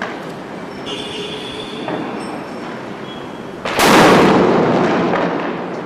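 A large firecracker going off with one very loud bang about two-thirds of the way in, which dies away over about two seconds. Before it, the lit fuse fizzes with a faint thin whistle.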